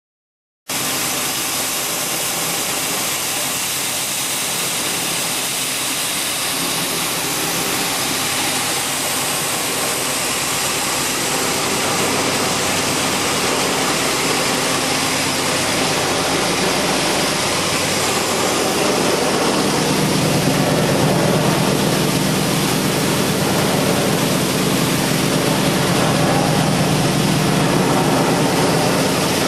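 Plastic powder mill (pulverizer) running: a loud, steady rushing machine noise with a low hum underneath. It starts suddenly just under a second in, and the low hum grows louder about two-thirds of the way through.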